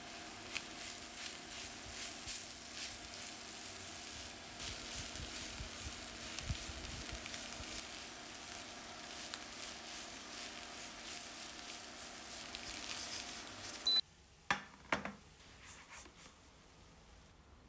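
Eggs and onion sizzling in a frying pan while a silicone spatula stirs and scrapes through them, with fine crackles throughout. About fourteen seconds in the sizzle cuts off to a much quieter sound with a few sharp clicks.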